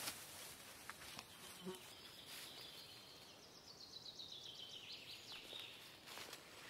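A songbird sings one faint song, a run of quick repeated notes falling steadily in pitch over about three seconds. A few soft clicks are heard near the start and again near the end.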